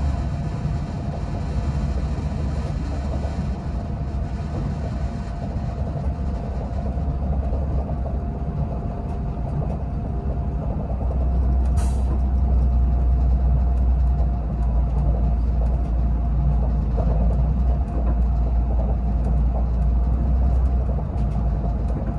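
A passenger train running at speed, heard from inside the carriage: a steady low rumble with a faint steady whine over it. There is a brief hiss or click about twelve seconds in.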